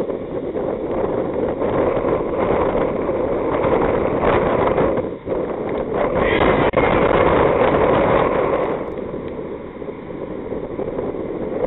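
Steady rushing wind noise buffeting the camera microphone, with a brief dip about five seconds in.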